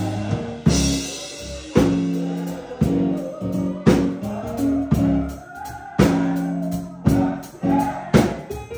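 Live gospel music: sustained keyboard chords over a drum kit, with a strong drum and cymbal stroke about once a second, and voices singing along.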